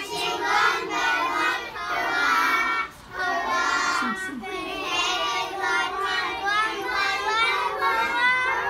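A group of young children singing a song together, with a brief pause about three seconds in.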